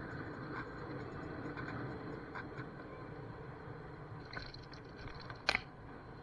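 Steady road and wind noise from riding a Gotway MSX electric unicycle, with faint scattered ticks and a single sharp knock about five and a half seconds in.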